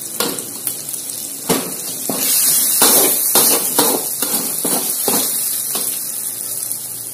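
Sliced lime leaves, pandan, lemongrass and turmeric leaves sizzling in hot spice paste in a metal wok while they are stir-fried, a metal spatula scraping and knocking against the pan in repeated uneven strokes.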